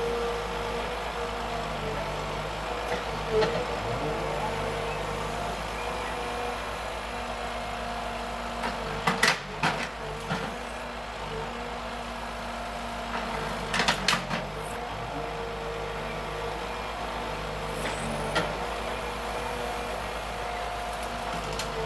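Forestry harvester's engine and hydraulics running steadily with a constant hum, broken by sharp cracks in a cluster about nine seconds in and another around fourteen seconds, as the harvester head works a tree.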